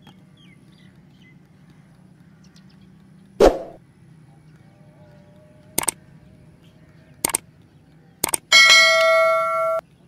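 Subscribe-reminder sound effect: a thump, then three mouse clicks spaced over the next few seconds, then a bright bell chime held about a second that cuts off suddenly.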